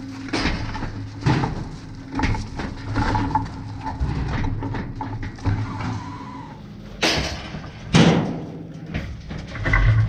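Steel cattle alleyway panels and gate rattling and clanking as cattle push through, with irregular knocks and two loud bangs about seven and eight seconds in, over a steady low hum.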